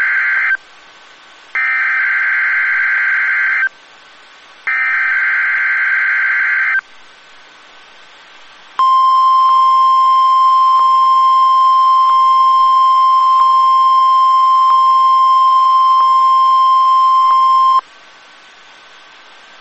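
NOAA Weather Radio SAME (Specific Area Message Encoding) header: three bursts of warbling digital data tones about two seconds each, the first already under way, followed by the steady 1050 Hz warning alarm tone held for about nine seconds and cut off abruptly, leaving faint radio static. It is the station's weekly test of its public warning alarm.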